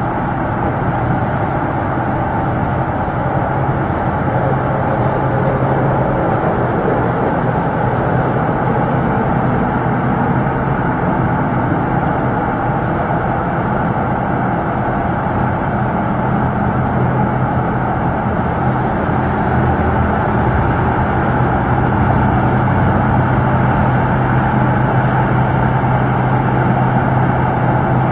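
Steady highway traffic: the continuous hiss and rumble of tyres and engines of cars and trucks passing, with a low drone underneath.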